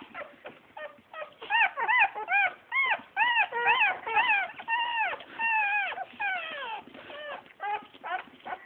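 Young bull terrier puppies whimpering and squealing: a rapid string of short, high cries that each rise and fall in pitch, about two a second, thinning out near the end.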